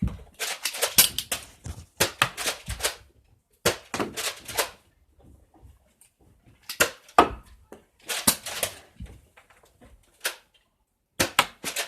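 Nerf blasters clacking and firing in quick clusters of sharp plastic clicks and knocks every second or two, with foam darts thudding around a small room.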